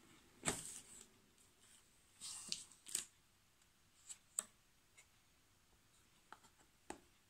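Plastic shrink-wrap being torn and pulled off a phone box, crinkling in a few short bursts over the first three seconds. After that come several light clicks and taps of fingers handling the bare cardboard box.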